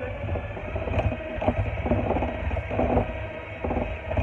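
Electric hand mixer running with a steady motor hum and whine, its beaters churning thick cookie dough in a bowl with uneven surges every half second or so.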